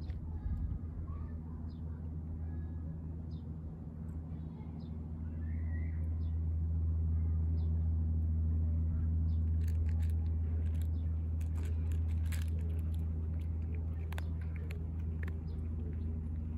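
Steady low hum of a running motor, growing louder about six seconds in, with faint short chirps and clicks over it.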